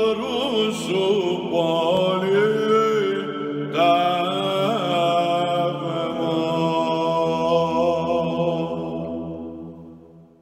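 Soundtrack music of slow chanting voices over a steady low drone. A new phrase comes in about four seconds in, and the music then fades out near the end.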